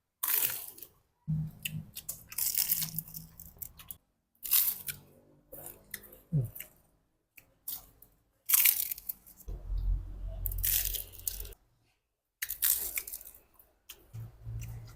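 Close-up eating of homemade martabak mie: crunchy bites and chewing of the fried noodle-and-egg martabak, coming in repeated short bursts with brief pauses between them.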